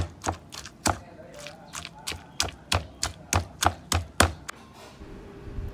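Stone pestle pounding sambal belacan (chilies and shrimp paste) in a stone mortar, the 'tok tok' strikes that give sambal tok-tok its name, at about three a second. The pounding stops a little over four seconds in, and a steady low hum follows.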